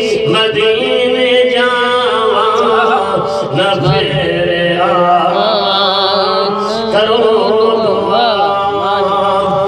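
A male naat reciter singing Punjabi devotional verse into a microphone, amplified through a sound system, in long, ornamented melodic lines. A steady held tone runs beneath the voice.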